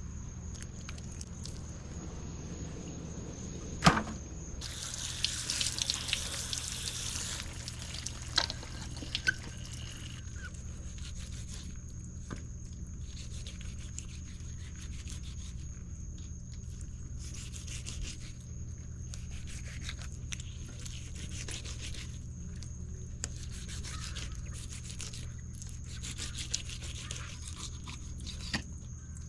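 Crappie being cleaned: rubbing and scraping of fish and fillets, a sharp knock about four seconds in, then a burst of running water lasting about three seconds. A steady low hum lies underneath.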